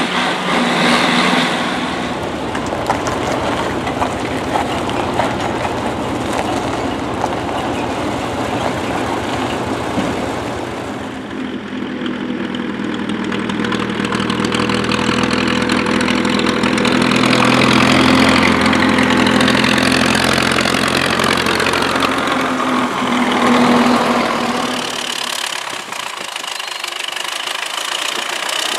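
MTZ-82 tractors' four-cylinder diesel engines running. After about a third, one tractor towing a trailer comes closer, its steady engine note growing louder.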